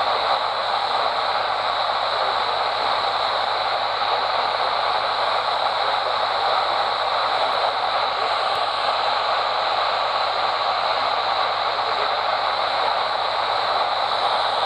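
Loud, steady static hiss from a NOAA weather radio receiver, with no programme audio or tones coming through.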